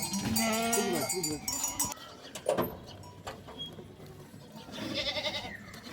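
Small livestock bleating, wavering calls in the first second and again near the end, with a single knock about two and a half seconds in.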